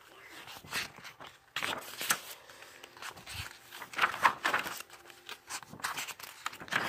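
Pages of a book being turned and handled: irregular paper rustles, brushes and scrapes.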